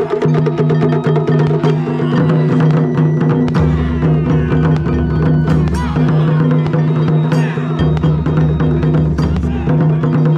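Taiko drum ensemble playing a fast, dense run of strikes, with sharp clacking hits among the drumbeats, over steady sustained tones.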